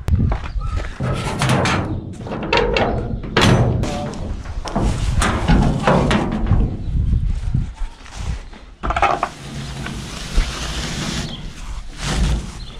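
Footsteps and a large sheet-metal gate being pulled open by hand, with irregular metallic thunks and knocks and a scraping rush lasting about two seconds past the middle.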